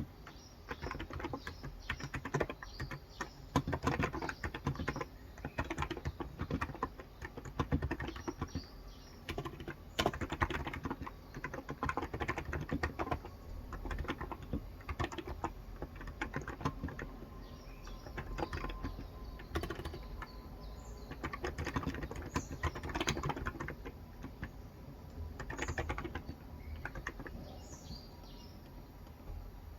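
Typing on a Cox Endeavor electro-capacitive (contactless) tenkeyless keyboard with light 35 g switches: runs of rapid keystrokes, thinning out near the end. Faint bird chirps are heard in the background.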